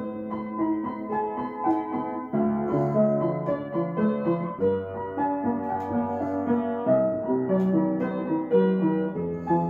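Upright acoustic piano being played with both hands: a steady flow of melody notes over lower notes that change about every two seconds.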